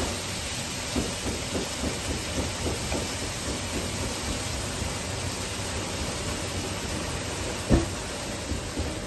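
Sauce boiling hard in an iron wok over a high-output gas wok burner: a steady rushing burner noise with continual bubbling pops, and a single sharp knock near the end.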